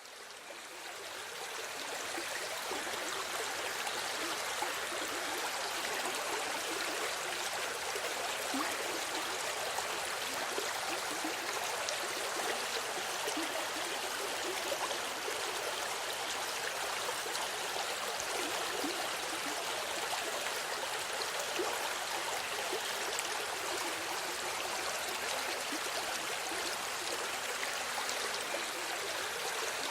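A small river flowing steadily over stones, a continuous rushing and babbling of water that fades in over the first couple of seconds.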